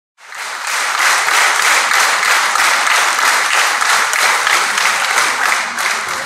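Audience applauding: dense, steady clapping that swells up within the first second and eases off near the end.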